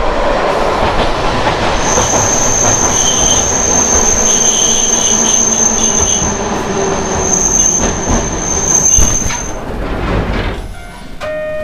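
Hankai Tramway Mo 351-class tram running, the growl of its nose-suspended traction motors mixed with wheels rolling over the rail. A thin, steady high wheel squeal sets in about two seconds in and stops near the end, where the running noise falls away.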